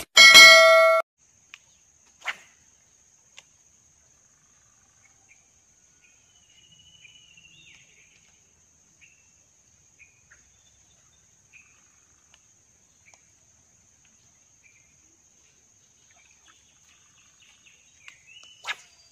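A bright bell-like ding, the sound effect of a subscribe-button animation, rings for under a second near the start. Then it is faint outdoors: a steady thin high insect tone, a few soft chirps and scattered small clicks, with one sharper click near the end.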